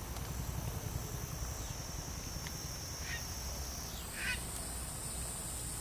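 Pond-side ambience: a steady high-pitched insect drone that steps up in pitch about four seconds in, with two short animal calls about a second apart, the second louder. A low rumble runs underneath.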